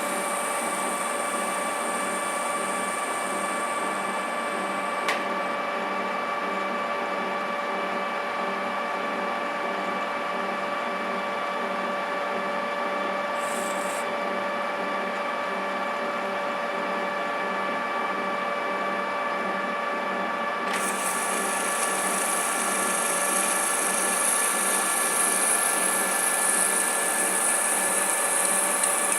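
TOS metal lathe running at a steady speed, its spindle drive and gears giving an even whine of several fixed tones. A click comes about a fifth of the way in, and a second click about two-thirds through, after which a bright hiss joins and the sound grows a little louder.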